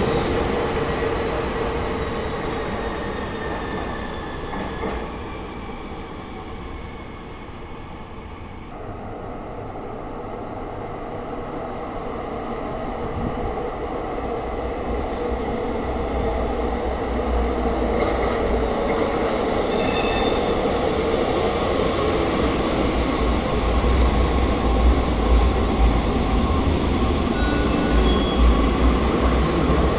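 San Francisco Muni light rail trains in an underground station. One train pulls out and fades away over the first several seconds, then the next approaches through the tunnel and runs into the platform, its low rumble building steadily. Brief high squeals come about twenty seconds in and again near the end.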